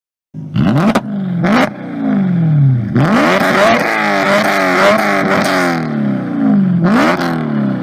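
BMW M3 E92's 4.0-litre V8 through an aftermarket exhaust, free-revved in a series of blips: four times the revs rise sharply and then fall slowly back toward idle, with short sharp cracks as they drop. It cuts in suddenly about a third of a second in.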